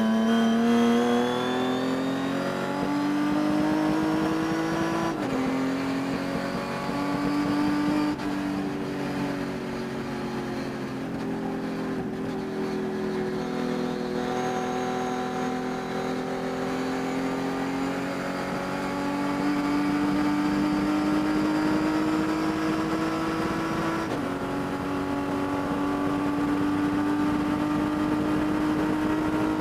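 Race car engine running hard, its pitch climbing under load and dropping suddenly at gear changes about five seconds in and near the end, with a slower dip and rise in between. The owner reports that this engine has a persistent high-RPM miss.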